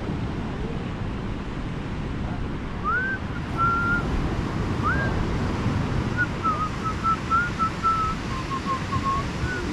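Surf washing on a beach with wind on the microphone, and someone whistling a tune over it. The whistling is two upward-sliding notes about three and five seconds in, then a run of short notes to the end.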